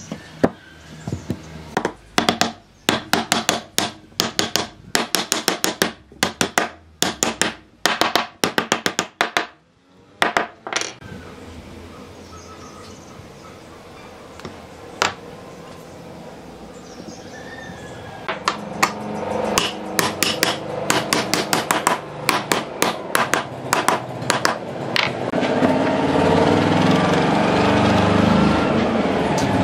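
Hammering on wood as the joints of a slatted pine frame are knocked together, in quick runs of several sharp blows a second. The blows stop for a while in the middle, start again in another run, and a steady noise builds near the end.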